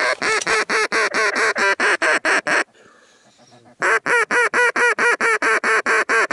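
Hunter's duck call blowing a fast, even string of loud mallard-style quacks, about five a second. Two runs of some fifteen quacks each, with a break of about a second between them, calling to ducks in flight.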